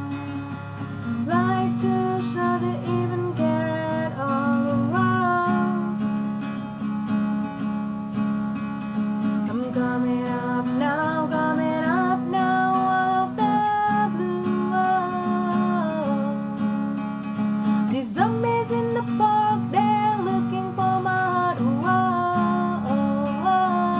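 Acoustic guitar strumming chords, with a sung melody over it that slides between long held notes.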